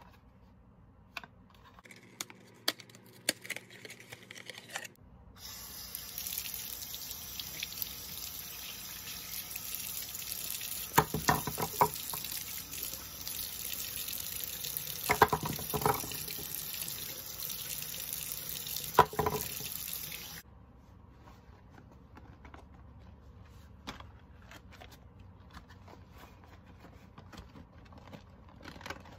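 Handling clicks and crinkles as a cardboard soap box is opened, then a bathroom sink tap running steadily into the basin while a bar of soap is rubbed under it. Three brief louder knocks or splashes sound partway through. The tap shuts off about twenty seconds in, leaving faint handling sounds.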